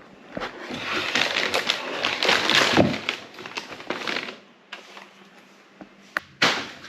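Plastic packaging of a new toner cartridge crinkling and rustling for about four seconds as it is unwrapped, then going quieter, with a sharp knock near the end.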